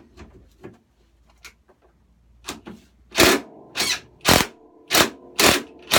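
A hand tool working on the mower's handlebar fixings: a few faint clicks, then from about three seconds in six sharp metallic strokes about two a second, with the metal ringing between them.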